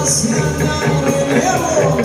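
Live rock band playing, with a bass line stepping between low notes under the rest of the band.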